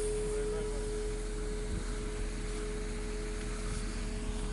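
Church bell hanging from a crane, ringing on after being struck: one steady tone that slowly fades and dies away near the end, over a low background rumble.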